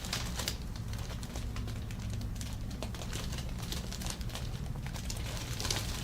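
Soft rustling and crinkling of hands and fabric moving over a patient during a back massage, with scattered faint clicks, over a steady low hum.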